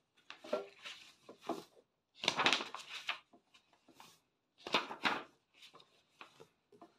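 Paper pages of a book being leafed through: a series of short rustles and flicks, the longest about two and a half seconds in.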